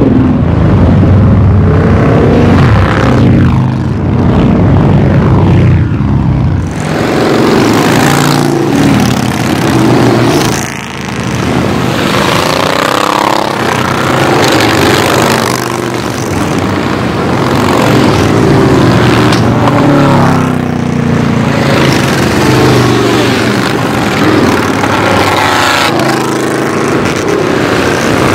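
A steady stream of cruiser motorcycles riding past one after another, their engine and exhaust note rising and falling in pitch as each bike goes by. About seven seconds in, the sound changes suddenly, losing its deepest rumble.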